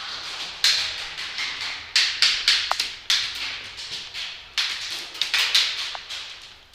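Airsoft guns firing a dozen or so sharp shots, singly and in quick groups, each cracking with echo in an indoor arena.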